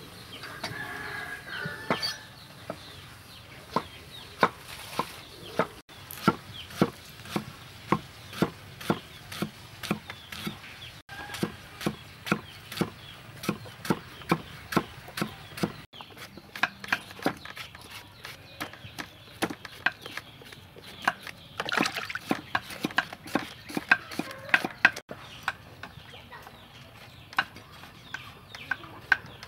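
Large cleaver chopping lemongrass on a thick wooden chopping block: a steady run of sharp knocks, about two a second. A chicken clucks now and then.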